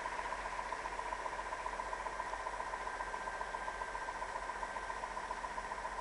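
MaK D25B diesel shunting locomotive rolling slowly along the track, its diesel engine running with a quick, even pulsing beat. A thin steady whine sounds over it and fades out about five seconds in.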